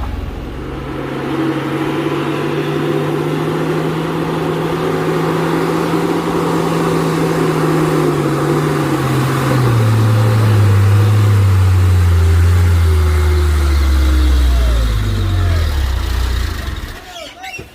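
Heavy truck's diesel engine labouring under load: its note holds steady, then sinks steadily in pitch for several seconds as the engine lugs down, and the sound cuts away abruptly near the end.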